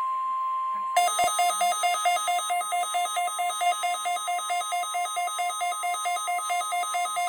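NOAA Weather Radio's steady 1050 Hz warning alarm tone. About a second in, a weather radio receiver's alarm sets off rapid alternating two-pitch beeping at about four beats a second, while the steady tone goes on faintly beneath it.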